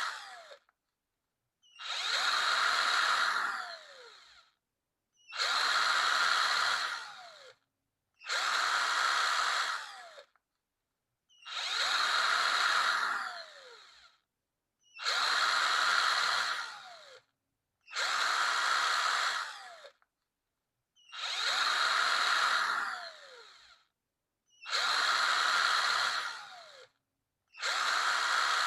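Electric drill run in repeated short bursts, about nine times: each time the motor spins up, runs for a couple of seconds, then whines down in falling pitch as the trigger is released, with about a second of silence before the next.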